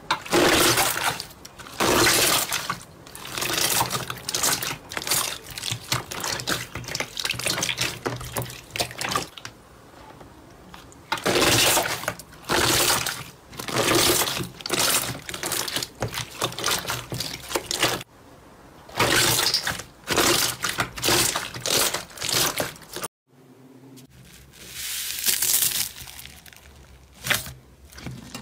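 Clear slime full of air bubbles being pressed and squeezed by hand, giving wet squelching and crackling in repeated bursts. There is a short break near the end.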